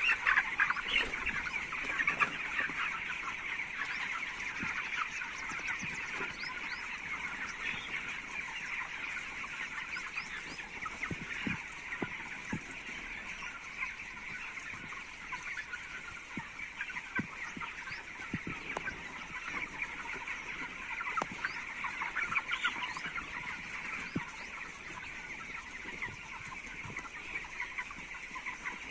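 A large flock of young chicks peeping and chirping together in a dense, steady chorus, with a few soft knocks in the middle.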